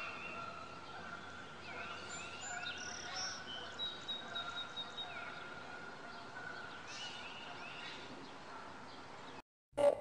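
Quiet outdoor ambience with birds chirping now and then and a faint held tone. Near the end it cuts out abruptly and a sudden loud burst of sound begins.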